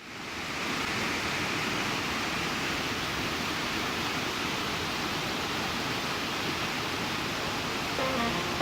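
A steady, even rushing noise that fades in at the start and holds level; music comes in near the end.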